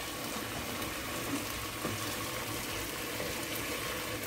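Hot water being poured from a small saucepan into an aluminium pressure cooker over pieces of seasoned meat, a steady pouring splash.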